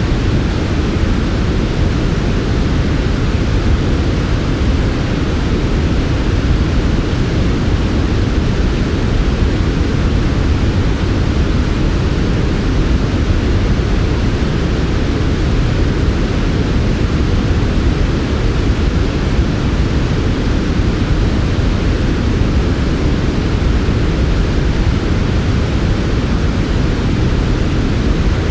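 Steady, unchanging synthetic noise, smooth and even, with most of its weight in the low range, so it sounds deeper than a plain hiss.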